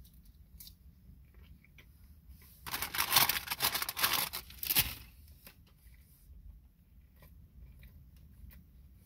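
Food packaging crinkling and rustling for about two seconds, starting near three seconds in, as the steak and cheese wrap's wrapper is handled. Faint chewing before and after.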